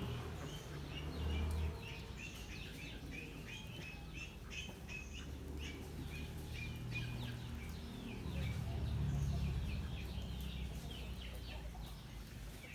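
Many small birds chirping in a dense, continuous chorus of short, high calls, over a low rumble.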